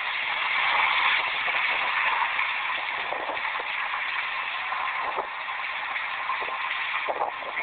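Water gushing out of a breach in a rock highwall: a steady, even rushing.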